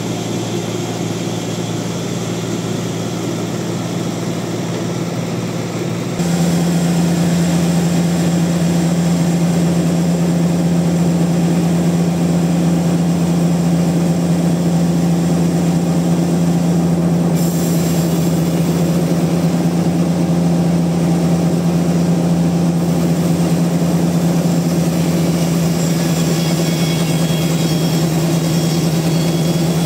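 Sawmill machinery running with a steady low hum. It steps up abruptly and gets louder about six seconds in, then holds steady.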